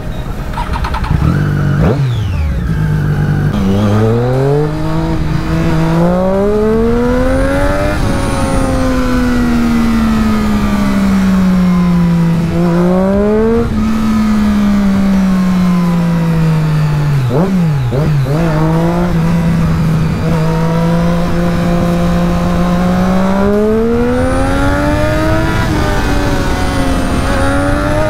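Triumph Daytona 675R's three-cylinder engine through a Scorpion exhaust, pulling away and accelerating hard. Its pitch climbs in long rising sweeps, drops back, and climbs again, with a quick throttle blip about two-thirds of the way through.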